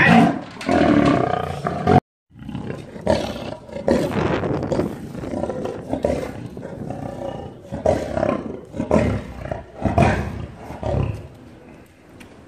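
Lion roaring: a run of roars about one a second that fade out near the end, with a brief total dropout about two seconds in.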